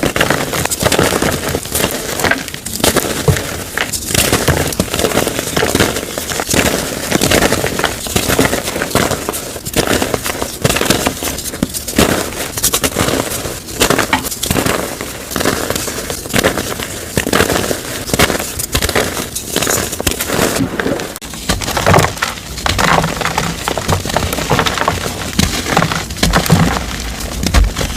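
Dyed gym chalk being crushed and crumbled: dense, crunchy, crispy crackling. Its character changes abruptly about three-quarters of the way through.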